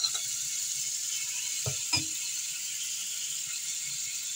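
Grated carrot sizzling in a little hot oil in a frying pan, a steady hiss, with a few sharp clinks of utensils against the pan: one at the start and two close together a little under two seconds in.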